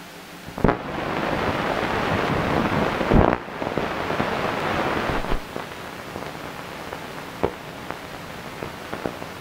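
Hiss and crackle of an old 16mm film soundtrack playing over the film leader, with scattered sharp pops and clicks. The hiss is louder for the first few seconds and then drops to a lower level.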